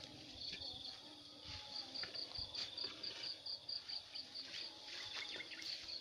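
Insects chirping in an even, high-pitched pulse, about four chirps a second, with a steadier trill beneath it. Faint footsteps and rustling through grass come in now and then.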